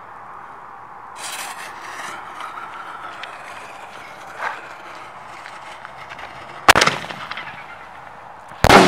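Excalibur reloadable mortar shell fired from a tube held in the hands: a muffled launch about a second in, then a sharp, loud bang about 7 s in and another loud burst near the end.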